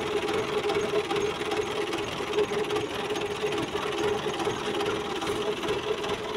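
Engine running steadily for a toy loader tractor on the move, an even mechanical drone without revving.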